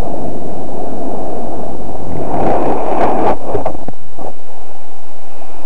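Loud wind buffeting the microphone of a camera carried down the slope by a snowboarder. It surges harder about two to three seconds in and drops away about four seconds in.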